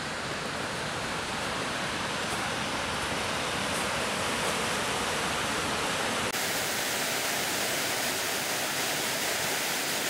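Half-frozen waterfall pouring between walls of ice into a pool: a steady rushing of falling water, its tone shifting about six seconds in.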